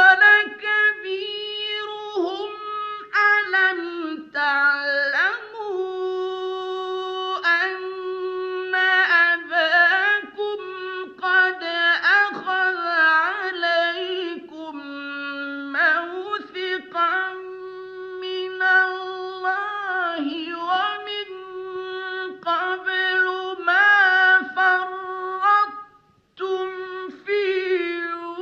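A male Quran reciter's voice chanting in a high register (murattal/mujawwad tajweed style), holding long sustained notes with quick ornamental turns and glides. The chant breaks briefly for a breath near the end, then resumes.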